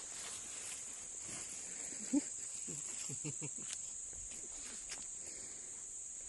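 Steady high-pitched insect chorus, a continuous shrill drone, with a sharp click and a few faint short voice sounds about two to three seconds in.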